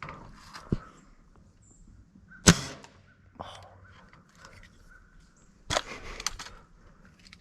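A single shot from a .22 Crosman Optimus break-barrel air rifle, a sharp crack with a short ring-off, about two and a half seconds in. A second, longer cluster of clicks and rustling follows about three seconds later.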